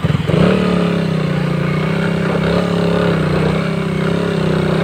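Suzuki motorcycle engine picking up from a lumpy idle about half a second in, then running at a steady held throttle with slight rises and falls in pitch.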